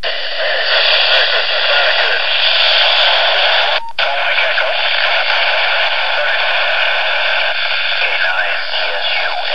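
Loud FM radio static from a handheld transceiver receiving the SO-50 amateur satellite's downlink: an even, band-limited hiss with faint garbled speech buried in it, cutting out briefly about four seconds in.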